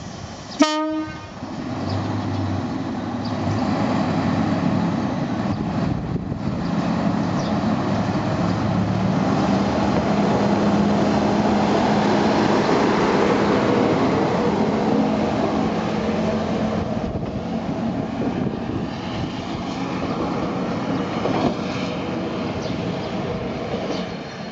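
Minami-Aso Railway MT-2000 diesel railcar sounds one short departure horn blast, then its diesel engine runs up as it pulls away and passes, loudest around the middle and slowly fading as it goes off down the line.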